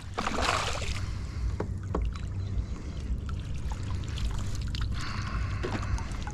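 A hooked smallmouth bass splashing at the surface beside a kayak in the first second. Then small splashes, drips and clicks of gear follow as the landing net is worked, over a low steady rumble.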